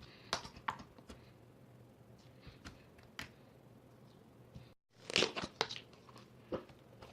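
Slime being squeezed and stretched by hand, giving a scattered series of short sticky crackles and pops. The audio drops out completely for a moment just before the 5-second mark, and the pops are louder after that.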